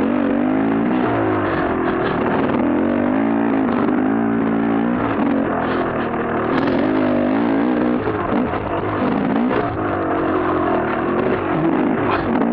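KTM dirt bike engine revving up and down with the throttle while being ridden, its pitch rising and falling repeatedly.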